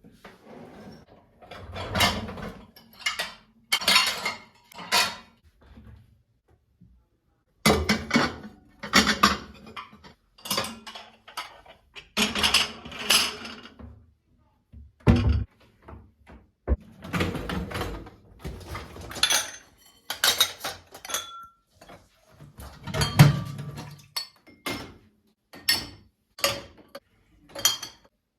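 Kitchen handling sounds: dishes, pots and utensils clinking, clattering and knocking at an irregular pace, with a heavier knock about two-thirds of the way through.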